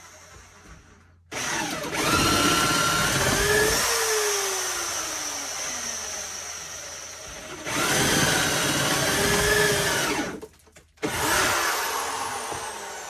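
Power drill boring into a wooden wall stud. It starts about a second in, runs in two long spells with a brief break, then a shorter burst near the end, the motor's pitch sagging and recovering as the bit bites into the wood.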